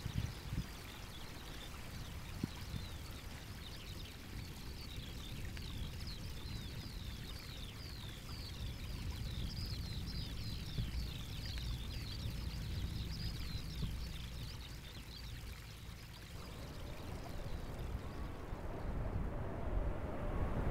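Wind rumbling on the microphone, with a small bird singing a long run of quick, high, downward-sliding notes that stops about three-quarters of the way through.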